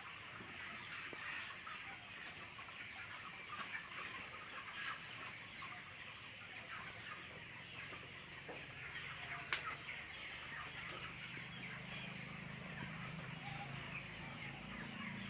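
Large flock of chickens in a poultry shed calling continuously, a dense overlapping mix of clucks and peeps, over a steady high hiss.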